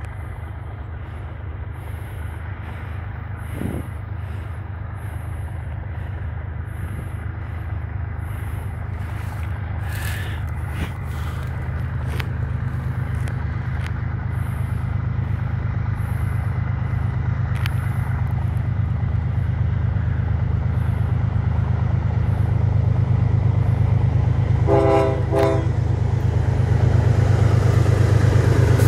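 CSX freight train's diesel locomotives approaching, their low engine rumble growing steadily louder. A short horn blast of about a second sounds near the end.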